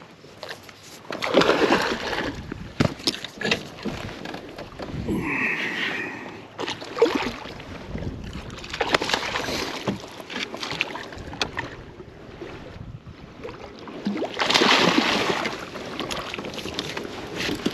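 Water splashing and sloshing around a fishing kayak, with knocks and handling noises in bursts every few seconds.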